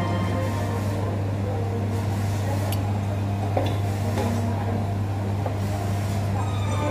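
Café room tone: a steady low hum with faint background chatter, and one light clink of tableware a little past halfway.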